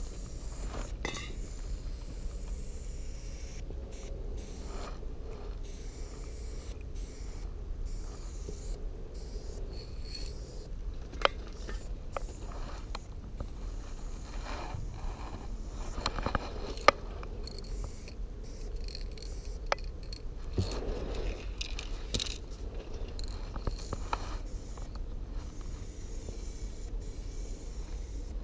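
Aerosol spray paint can hissing in uneven on-off strokes as paint is sprayed onto a train's side, over a steady low rumble, with a few sharp clicks.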